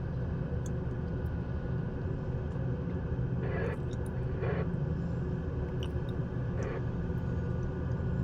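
Engine of a heavy earth-moving machine running steadily, a low even drone.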